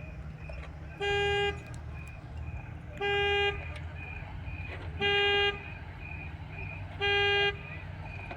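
A vehicle horn sounding in even half-second blasts, one every two seconds, four times, over a running engine's low rumble. A faint high-pitched beeping pulses steadily underneath.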